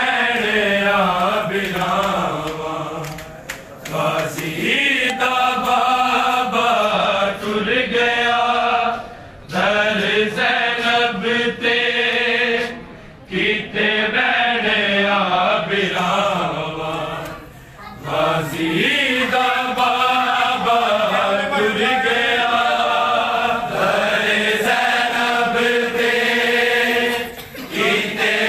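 Male voices chanting a Punjabi noha, a Shia mourning lament, in long drawn-out phrases with brief pauses between them.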